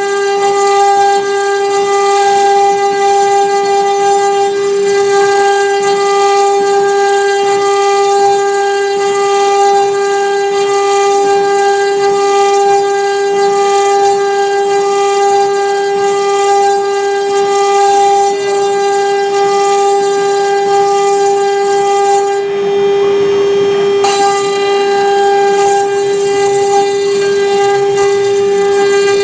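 CNC router's 3 kW water-cooled spindle whining steadily at one pitch while the bit engraves MDF, with a hissing cutting noise over the whine. The hiss drops away for a couple of seconds about 22 seconds in while the whine holds.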